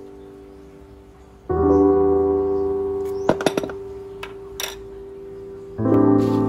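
Mellow lo-fi background music: soft piano chords struck about a second and a half in and again near the end, each left to ring and fade. A few short, sharp clicks about three seconds in, with another tap a second later.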